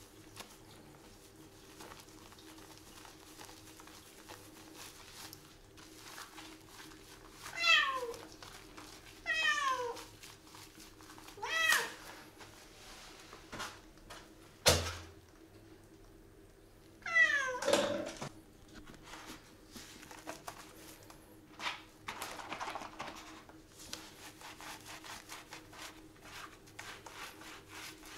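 Calico cat meowing four times while being shampooed, each call falling in pitch. Soft scrubbing of lathered wet fur runs between the calls, with one sharp knock about halfway through.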